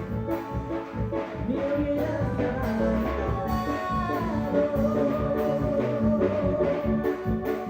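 A live band playing a song with a steady drum beat under a melody line that glides up and holds long notes.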